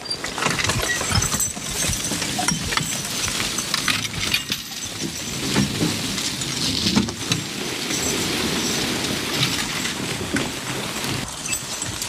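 A team of Belgian draft horses pulling a wheeled logging forecart that skids a log through the woods: steady rattling and clinking of the cart's metal frame and the harness hardware, with the log dragging over the forest floor.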